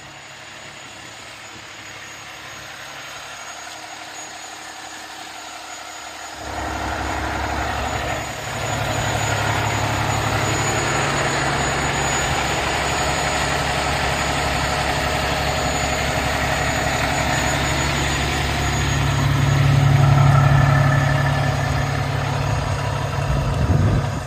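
Diesel engine of a fire department aerial ladder truck idling steadily. It grows louder about six seconds in and swells again near the end.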